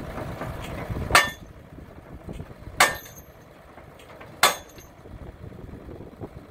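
WRAG Thrift post driver's hammer striking a post three times, about one and a half seconds apart, each blow a sharp clang with a short ringing. Under the blows the Morooka MST800 carrier's engine runs steadily.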